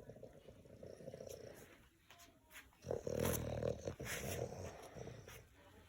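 A dog snoring in its sleep: two long snores, the second, starting about three seconds in, louder than the first.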